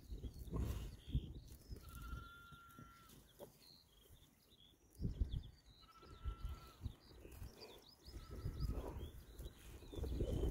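Oxford Sandy and Black sow and piglets grazing and rooting in grass, with low grunts and snuffling coming in bursts every few seconds. Two thin, level squeals of about a second each, and faint bird chirps.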